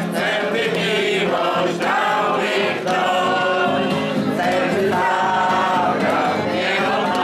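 A group of men and women singing a song together.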